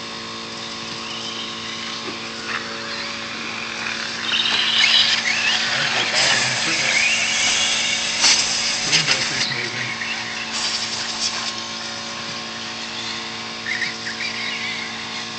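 Radio-controlled race cars running on a dirt track, their motors giving a high rising and falling whine that swells as they pass close by about four to ten seconds in, over a steady low hum.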